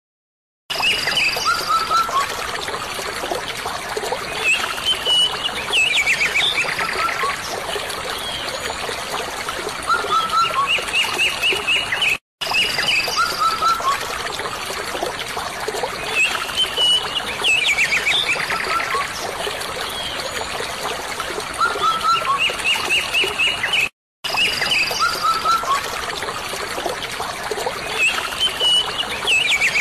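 Birds chirping and trilling over a steady trickle of running water. It is a short nature recording looped: the same calls come round about every 12 seconds, each time after a brief dropout.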